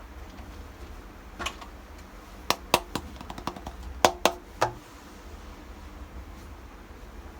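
Miniature toy kitchen pieces handled, giving a scattered run of light clicks and knocks, about ten in all, a few of them ringing briefly.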